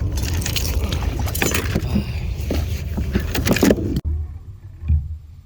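Clicking, rattling handling noise over a low wind rumble, which cuts off abruptly about four seconds in to a much quieter stretch with a few soft low thumps.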